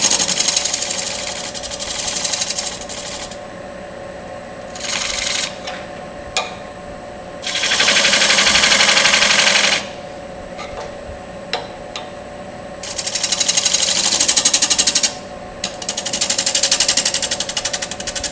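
Robert Sorby 1-inch scraper cutting the outside of a spinning natural-edge wooden bowl on a wood lathe running at 800 RPM. There are about five passes of fast, even rasping chatter, each from a fraction of a second to about three seconds long, with the lathe's steady hum between them.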